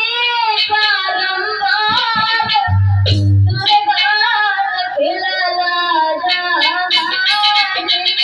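A woman's high voice singing a devotional sumirani to the Mother Goddess in long, sliding held notes, with a deep bass note from the accompaniment about three seconds in.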